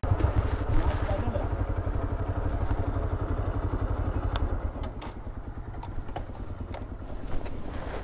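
Yamaha YBR 125G's single-cylinder engine running slowly with a fast, even low thrum as the bike picks its way over a rocky dirt track. A few light clicks come through in the second half.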